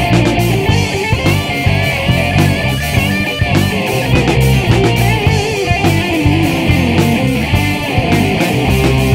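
Rock band playing a song: electric guitar over bass and a drum kit keeping a steady beat.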